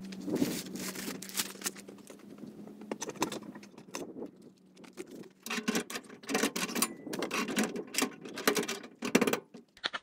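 Handling at the open back of a GAZ-69: rustling, clinks and irregular knocks as things are moved in the cargo space and the rear tailgate is shut, busiest in the second half.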